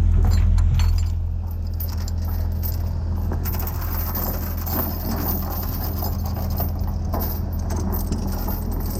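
A heavy diesel engine idling steadily, with light metallic clinks and rattles over it. The engine sound drops in level about a second in.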